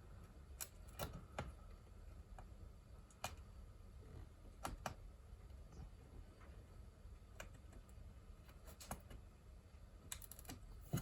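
Faint, scattered clicks and taps of small keyboard parts being handled and removed, about a dozen over the stretch, against a low room hum.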